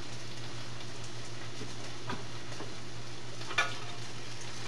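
A skillet of soy-marinated chicken sizzling, a steady frying hiss over a low hum, with two faint clicks partway through.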